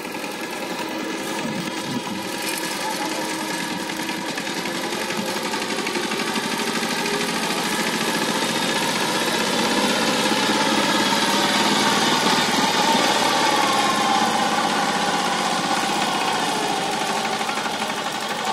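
Single-cylinder diesel engine of a two-wheel power tiller chugging steadily as it hauls a fully loaded paddy trolley, getting louder as it comes closer and easing off a little near the end.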